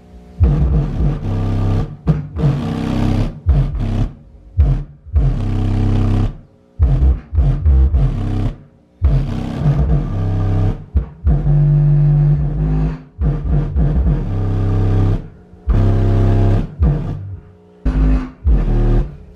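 Sundown Audio X12 V2 12-inch subwoofer playing loud bass-heavy music in free air, with no enclosure, its deep notes coming in choppy stretches broken by short gaps.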